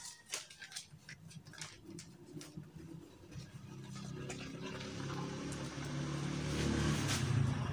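Rustling and light knocks of a large paper chart being pressed and fixed onto a concrete wall, then a low engine-like hum that grows steadily louder over the last four seconds and stops abruptly at the end.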